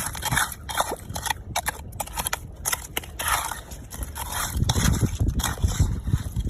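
Irregular crunching and scraping of digging in sandy, shelly beach ground while gathering clams, with a low rumble building in the second half.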